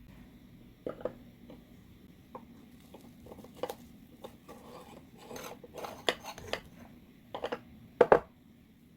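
Kitchen utensils clinking and scraping against a bowl or dish in a run of irregular light taps and knocks, with a sharper double knock near the end.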